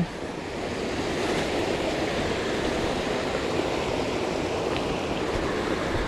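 Steady rush of creek water.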